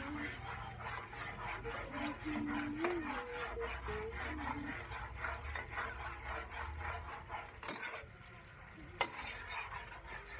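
A utensil stirring and scraping in a cooking pan, a quick even run of strokes with a light sizzle of frying underneath, easing off about eight seconds in; a single sharp click about nine seconds in.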